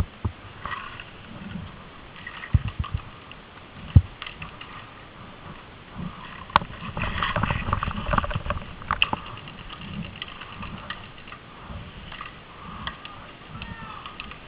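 Camera handling and movement noise while the player moves: rustling, bumps and scattered sharp clicks, with the loudest knock about four seconds in and a denser rumbling stretch in the middle.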